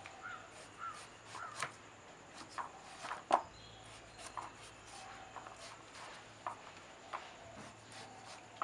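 A knife working on cut bottle gourd: scattered sharp clicks and light knocks as the blade peels the skin off the pieces and taps the dried palm sheath beneath, the loudest a little over three seconds in. A few short chirps sound in the background near the start.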